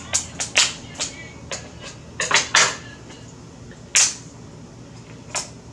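King crab leg shell cracking and snapping as it is cut with shears and pulled apart by hand: a string of sharp cracks, loudest about two and a half seconds and four seconds in.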